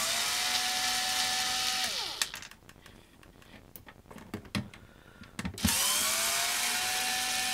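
Makita cordless drill-driver unscrewing screws from a plastic iron housing: the motor spins up to a steady whine for about two seconds and winds down, a few light clicks follow, then it runs up again about two thirds of the way in.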